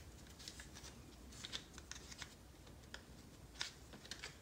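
Faint, irregular light clicks and rattles of hard plastic RC car rear suspension parts being handled and fitted together by hand.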